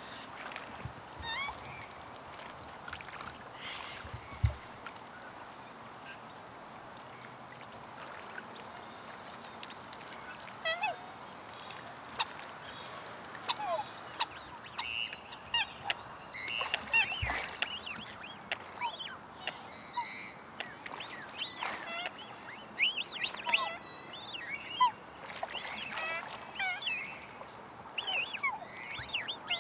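Black swans and their cygnets calling while feeding on the water: many short squeaky calls that bend up and down in pitch, scattered at first and coming thick and overlapping from about halfway through. A low thump about four seconds in and another later on.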